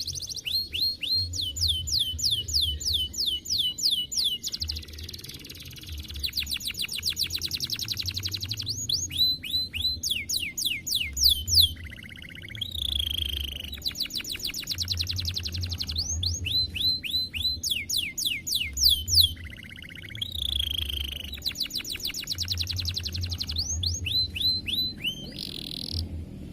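Domestic canary singing a long song made of rapid rolling trills, each a fast run of repeated chirp notes held for a second or more, changing from one trill to the next with brief pauses about twelve and twenty seconds in.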